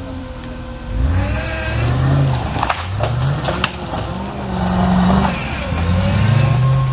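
Off-road 4x4's engine revving in repeated bursts, rising and falling in pitch about five times, with a few sharp knocks about three seconds in.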